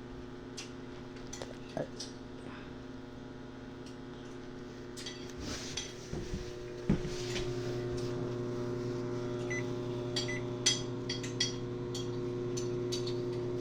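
GE JES1145SH1SS countertop microwave oven running with a steady hum. About seven seconds in there is a sharp click and the hum grows louder, with scattered light clicks and ticks throughout.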